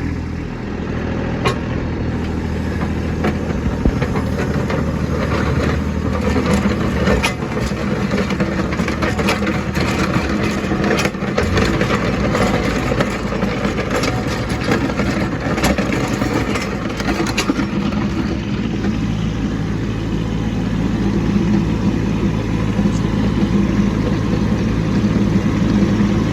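Kubota B2601 compact tractor's three-cylinder diesel engine running while blading snow, its note changing about eleven seconds in. Scattered knocks and clatter through the middle stretch.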